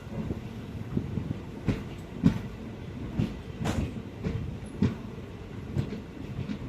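Train running on the rails, with a steady low rumble and irregular clattering knocks and clanks from the wheels and couplings.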